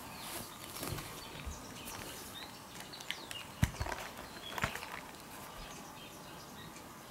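A few soft knocks and rustles as a cat shifts and settles on tatami, with light tinkles from the bell on its collar; the knocks are loudest around the middle.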